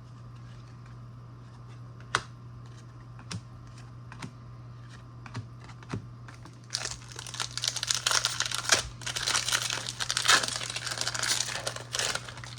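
Scattered light clicks and taps of trading cards being handled, then, about seven seconds in, a trading card pack's foil wrapper being torn open and crinkled for several seconds.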